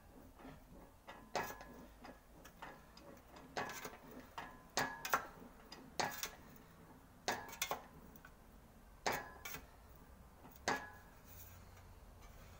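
Sheet-metal quarter-panel repair panel being wheeled back and forth through an English wheel, giving irregular sharp clicks and ticks, some in quick pairs, about ten in all, dying away near the end.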